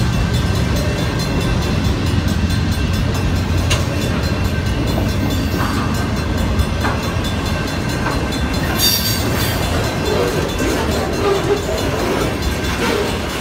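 BNSF freight train's autorack and covered hopper cars rolling past at close range: a steady low rumble of wheels on rail, with scattered clanks and a brief high-pitched squeal about nine seconds in.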